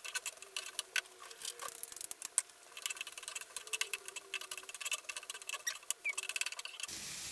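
Diced onions frying in oil in a skillet, softening, with a steady scatter of small crackles and pops, and a wooden spatula stirring and scraping them around the pan.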